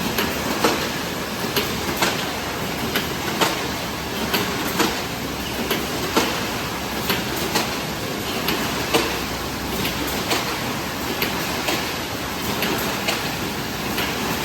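Automatic can body welding machine running at its production rate of about 45 cans a minute: a sharp clack roughly every second and a half as each can body is cycled through, with lighter clicks between over a steady mechanical noise.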